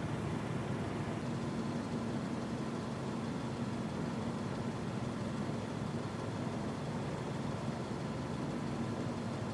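Steady low hum of vehicle engine noise over a faint even hiss, with no distinct events.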